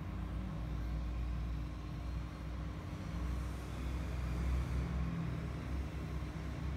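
Low steady rumble with a faint steady hum over it.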